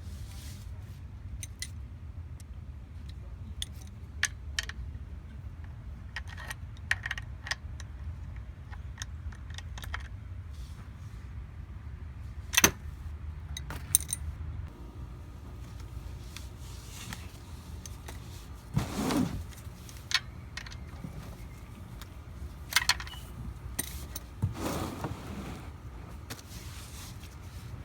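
Scattered metallic clicks and clinks of hand tools and small metal parts being handled during an oil change, over a steady low hum. A few knocks stand out, the loudest about halfway through.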